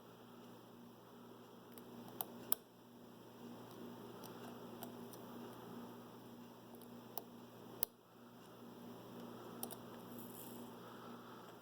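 Faint metallic clicks and ticks of a lock pick and tension tool working inside a Yardeni dimple lock cylinder, a few scattered sharp clicks, over a steady low electrical hum.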